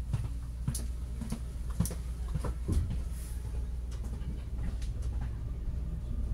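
Inside the carriage of an Alstom Coradia Lirex X61 electric multiple unit: a steady low rumble with scattered clicks and knocks.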